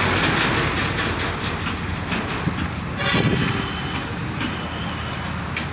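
Steady rumble and hiss of passing road traffic, with a few light clicks from small jack parts being handled and a brief louder rattle about three seconds in.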